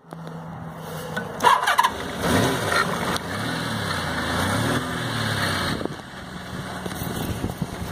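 Motorcycle engine started on the electric starter and catching, then revved up and down several times before settling to a steady idle near the end.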